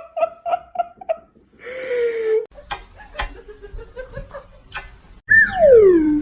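A run of short, high laughing calls, about three a second, that dies away in the first second. Near the end comes a loud, drawn-out cry sliding steeply down in pitch.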